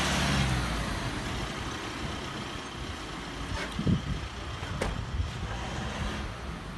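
Ambulance engines running, a steady vehicle hum, with a dull thump about four seconds in and a sharp click about a second later.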